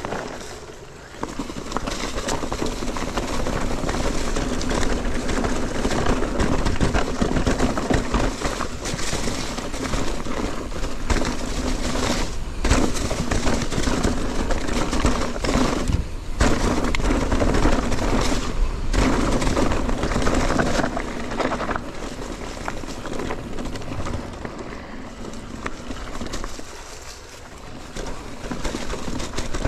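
Mountain bike descending a dirt trail: a steady rush of wind on the camera microphone mixed with tyres on dirt and the bike rattling, with a few brief lulls.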